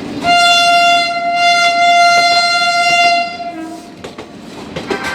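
Electric locomotive horn (WAP7) sounding one long, steady blast of about three seconds as the train runs through the station without stopping.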